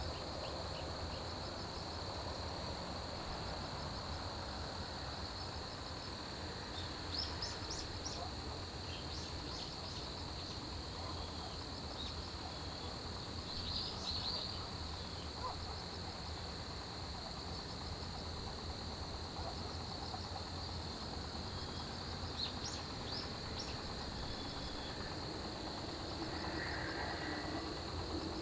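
Autumn grass insects, crickets among them, singing in a continuous high trill. A fainter, higher insect pulses steadily over it, and there are a few brief chirps here and there.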